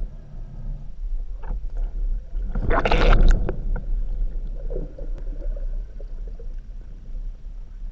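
Underwater water noise on a camera as a spearfisher swims with a speargun: a steady low rumble of water moving over the housing, with a loud gurgling rush of water and bubbles about three seconds in, then scattered small gurgles and clicks.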